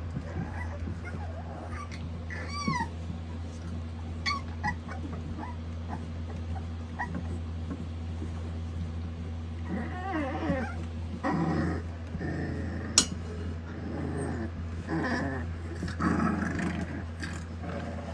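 Young puppies growling and squealing as they wrestle: a high squeal about two seconds in, a few short yips, then repeated small growls through the second half. A steady low hum runs underneath.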